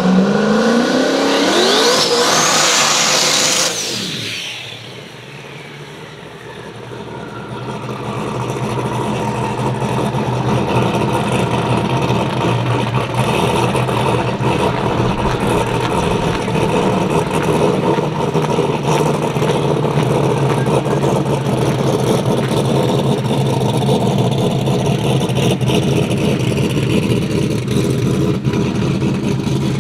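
A drag race car launching and accelerating hard away down the strip, its engine pitch climbing steeply for about four seconds and then fading into the distance. From about eight seconds in, a big engine runs steadily close by to the end.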